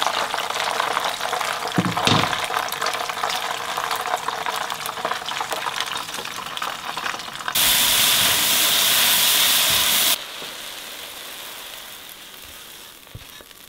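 Hot oil sizzling and crackling as fish steaks deep-fry in a pan. A little past halfway a louder, even sizzle runs for a couple of seconds and cuts off sharply, and the sizzling then fades down.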